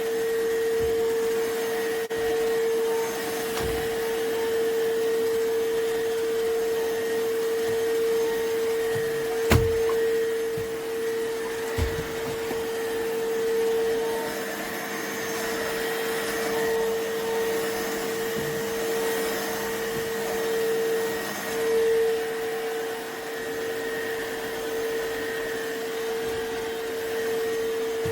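Cordless stick vacuum cleaner running steadily: a constant high motor whine over a hiss of airflow. A sharp knock comes about ten seconds in and another a couple of seconds later.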